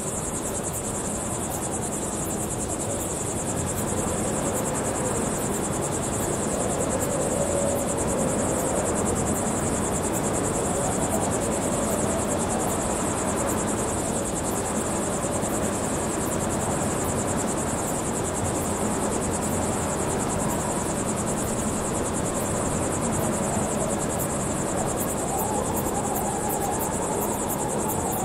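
Crickets trilling in a steady high-pitched night chorus over a constant rush of wind.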